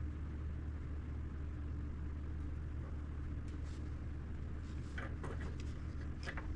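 Steady low hum with a few faint light clicks and taps in the second half, as small wires and tools are handled.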